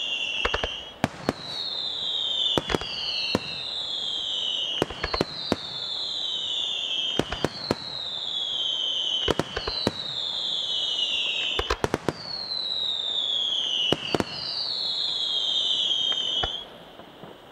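Aerial fireworks display: shells bursting with sharp, irregular bangs, over a high whistle that falls in pitch, repeating roughly every two seconds. The whole display drops off suddenly near the end.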